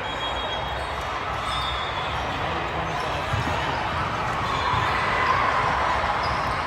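Gym hubbub with balls bouncing on the hardwood court floor: a few low thuds over a steady background of crowd chatter.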